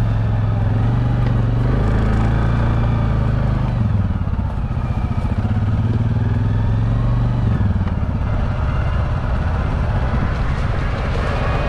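Arctic Cat TBX 700 side-by-side's engine running as it drives along a trail. Its pitch dips about four seconds in and again near eight seconds as the throttle changes.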